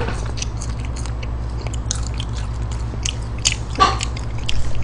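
Close-miked chewing of french fries: a steady run of wet mouth clicks and smacks, with one slightly louder smack a little before the end, over a steady low hum.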